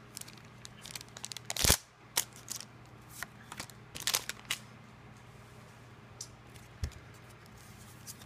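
Foil booster-pack wrapper crinkling and trading cards being pulled out and handled, in scattered sharp crackles, the loudest about a second and a half in and another cluster around four seconds; a soft low thump later on.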